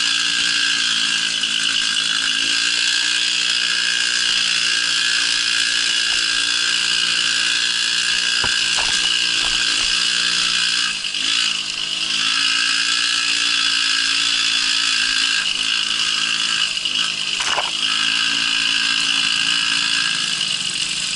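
Babetta moped's small two-stroke engine running steadily under way, its pitch dipping briefly twice, about halfway through and again later.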